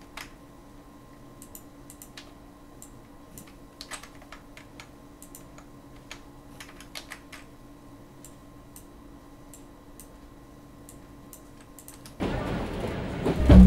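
Scattered, irregular computer keyboard and mouse clicks over a faint steady electrical hum. About twelve seconds in, a much louder rushing ambience from the film soundtrack's playback cuts in abruptly.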